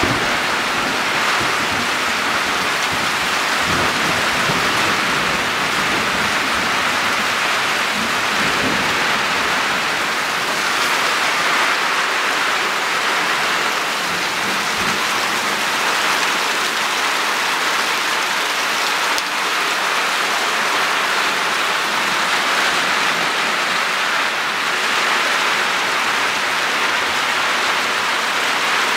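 Heavy rain pouring down in a steady, dense hiss. Low rumbles of thunder come in the first part and fade out after about ten seconds.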